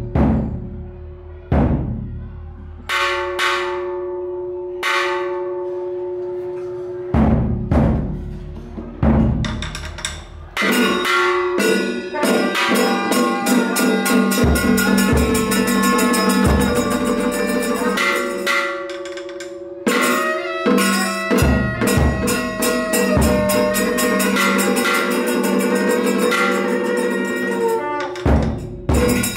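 A large bell struck about six times, each stroke ringing on. From about ten seconds in, ceremonial temple percussion takes over, with drums beating fast under sustained ringing tones.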